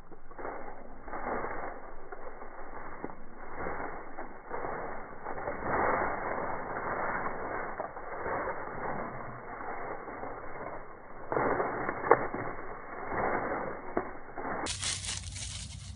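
Slowed-down rustling and crunching of dry fallen leaves under a running dog's feet, coming in irregular swells, with one sharp crack about twelve seconds in. Near the end the sound returns to normal speed and turns brighter.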